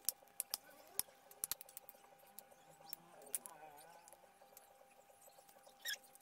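Scattered light clicks and taps of a metal spoon against a glass baking dish as food is spooned and spread over lasagna sheets, with a faint steady hum underneath.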